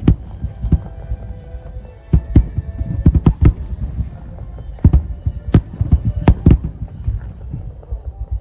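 Aerial firework shells bursting in quick succession, a dense string of deep booms and sharper cracks heard from about three kilometres away, with a low rumble between the bursts.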